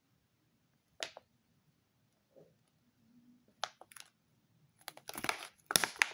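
Clear plastic sandwich packs handled and squeezed in the hands, crackling and clicking. There is one crackle about a second in and a few sharp clicks near four seconds, then a longer, louder run of crackling near the end.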